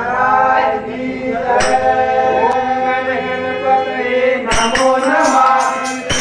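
Men singing a bhajan together to a harmonium, holding long notes. About four and a half seconds in, a hand-played barrel drum and jingling percussion come in with a steady beat.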